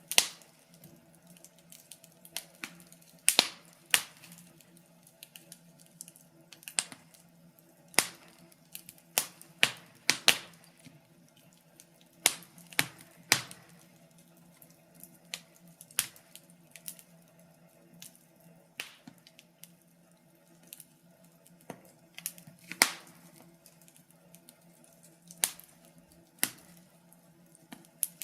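Wood fire crackling in a fireplace: irregular sharp snaps and pops, some much louder than others, over a faint steady low hum.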